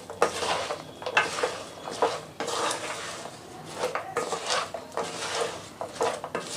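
Wooden spatula scraping and knocking against a non-stick kadai in a run of irregular strokes, as fried shakkarpare are stirred without a break through thickening sugar syrup that is drying onto the pieces.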